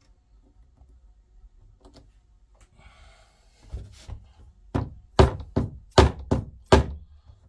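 Plastic hammer tapping a pin in to fix a model railway turnout: a brief rustle, then a quick series of about eight sharp knocks, the loudest near the end.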